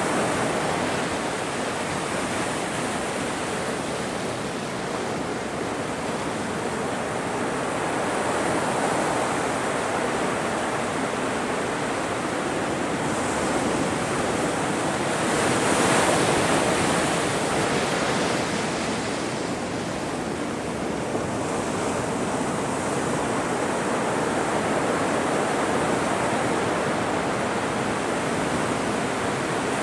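Ocean surf: waves breaking and washing in a continuous rush, with one louder wave about halfway through.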